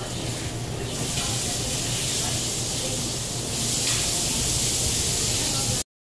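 Ceiling fan running: a steady rushing hiss of moving air over a low hum. The hiss grows stronger about a second in and again a little past halfway, then cuts off suddenly near the end.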